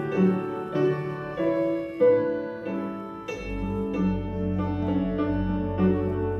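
Slow piano music, notes struck one after another in a gentle melody, with a deep bass note coming in about halfway and holding.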